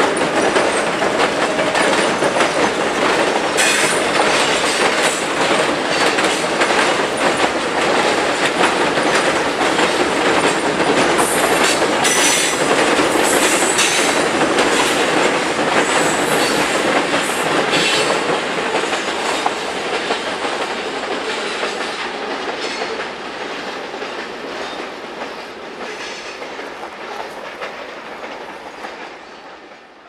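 Freight train's covered hopper cars rolling across a steel girder bridge, wheels clacking over the rail joints, with brief high wheel squeals about twelve to fourteen seconds in. The sound dies away over the last ten seconds or so.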